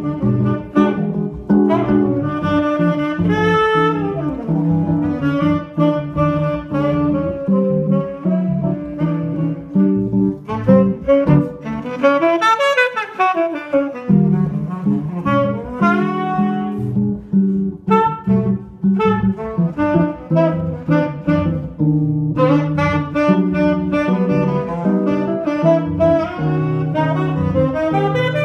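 Tenor saxophone and archtop jazz guitar playing jazz together, the saxophone carrying the melody over the guitar's chords. About twelve seconds in, the low guitar accompaniment drops out for about two seconds while quick runs sweep up and down, then comes back.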